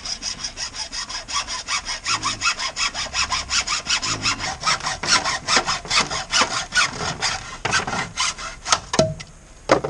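Hand saw cutting through a tube with rapid back-and-forth strokes, about five a second, stopping near the end of the cut. A couple of sharp knocks follow just after the sawing stops.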